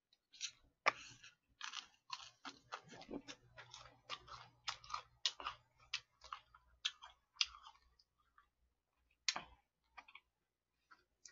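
Crunchy chewing of fried chicken coated in cheese powder: a quick run of crisp crunches about two or three a second for the first eight seconds, then one last crunch.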